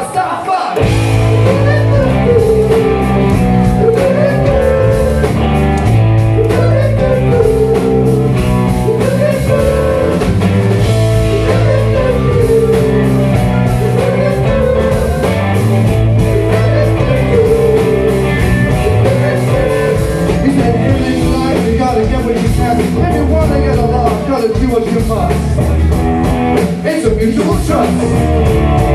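Rock band playing live, with electric guitars, keyboard and drums, and a man singing; a melodic phrase rises and falls about every two seconds.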